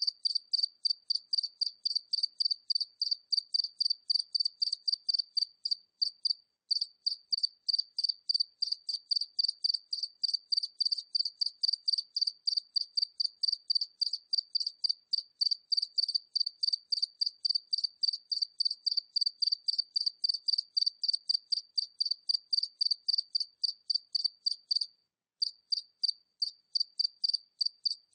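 A single cricket chirping at medium distance: a steady, high-pitched rhythm of short chirps, about four a second, broken by two brief pauses.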